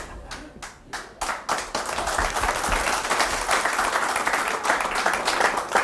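Studio audience applauding: a few scattered claps that build within the first couple of seconds into full, steady applause.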